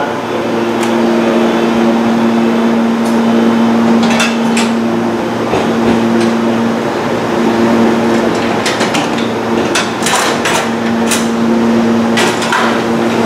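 Metallic clanks and knocks from crew working at the coupled ends of two Meitetsu μSKY trains, fitting the gangway footplate between the cars. The knocks come singly from about four seconds in and bunch together near the end, over the steady hum of the standing trains.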